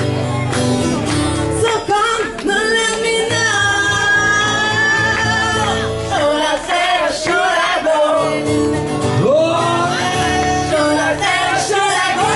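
Acoustic duo performing a cover song live: sung vocals held and bent over a steady acoustic accompaniment.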